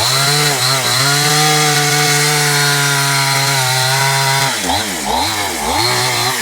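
Chainsaw engine running at a steady high speed, then revved up and down several times near the end.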